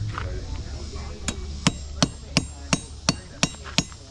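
Blacksmith's hand hammer striking hot iron on an anvil while forging a nail. An even run of blows starts about a second in, about three a second, each with a short metallic ring.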